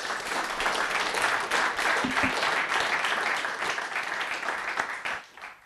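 Audience of a few dozen people applauding, many hands clapping at once, then dying away about five seconds in.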